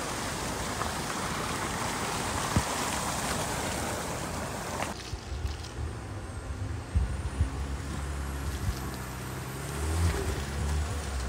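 Land Rover Defender driving over a rough, stony road with water running across it: a steady wash of tyre and water noise. This cuts off abruptly about five seconds in and gives way to the engine's low drone, with scattered knocks as the wheels go over stones.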